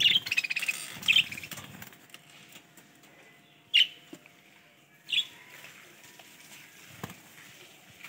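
Budgerigars chirping in short, high bursts: a quick run of chirps in the first second and a half, then single chirps about four and five seconds in. A single sharp knock near the end.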